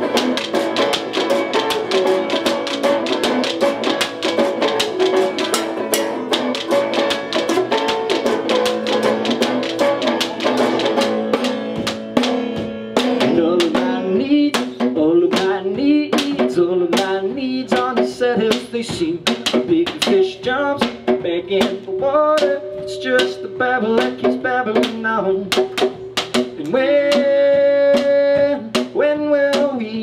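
Banjo, resonator guitar and a wooden chicken coop used as a hand drum playing an up-tempo acoustic tune. The coop's strikes come thick and fast at first, then thin out about halfway through under a wavering melody line.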